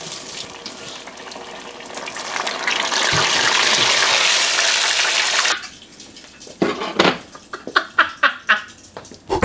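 Battered food sizzling in hot oil in an electric deep fryer, the sizzle swelling for a few seconds as the piece is stirred and scooped out with a mesh strainer, then stopping abruptly. A string of sharp taps and knocks follows, ending in a loud thump.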